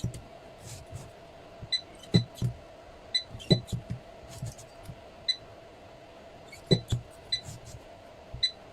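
Battery spot welder welding connecting strips onto lithium-ion cells: an irregular series of about a dozen sharp snaps, many with a short high beep, a weld every half second to second and a half.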